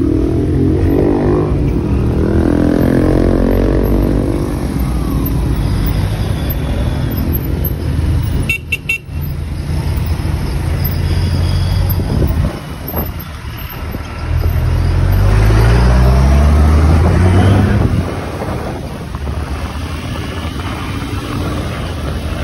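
Vehicle engine pulling away and speeding up in city traffic. Its pitch climbs within the first few seconds and again about two-thirds of the way through.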